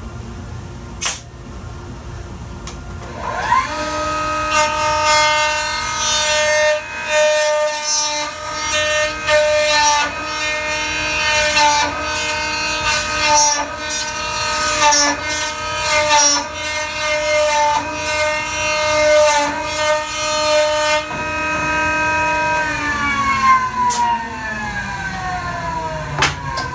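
Router motor of a dovetail-cutting machine starting up a few seconds in with a quickly rising whine, then running at steady speed while the bit cuts a wooden board, with the cutting noise coming and going on each pass. Near the end it is switched off and the whine falls away as it spins down.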